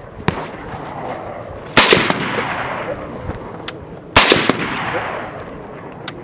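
Suppressed TRIARC Systems short-barreled AR-15 in 5.56 firing two single shots about two and a half seconds apart, each report trailing off in an echo that fades over a second or so.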